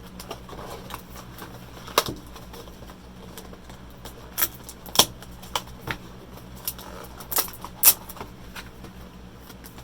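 Scattered sharp clicks and light plastic taps, about nine in all and irregularly spaced, from handling a new gaming mouse in its packaging.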